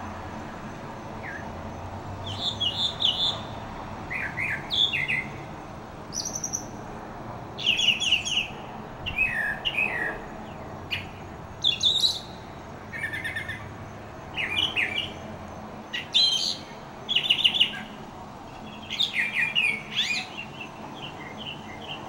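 Northern mockingbird singing, starting about two seconds in, a long run of varied high phrases, many of them single notes repeated several times in quick succession, over a steady low background hum.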